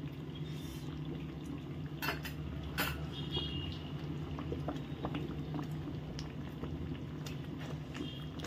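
Semolina upma boiling in a non-stick kadai over a gas flame: a steady low bubbling, broken by scattered sharp clicks, the loudest about two and three seconds in.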